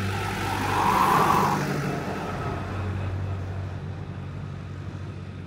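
A car passing on the street, its road noise swelling to a peak about a second in and fading over the next second or so, over a steady low hum.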